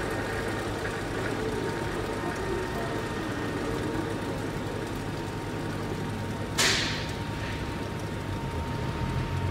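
Brierley ZB-50 drill grinder's electric motor running steadily with a steady hum and whine. About two-thirds of the way through, a sudden short hiss rises above it and fades within about half a second.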